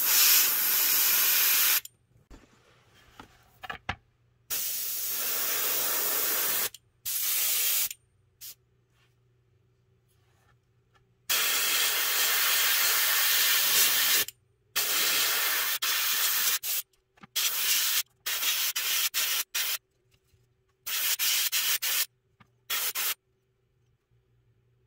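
Airbrush spraying paint in bursts, each a hiss of air that starts and stops abruptly as the trigger is worked. Several sprays last one to three seconds, then a run of short, quick bursts comes near the end.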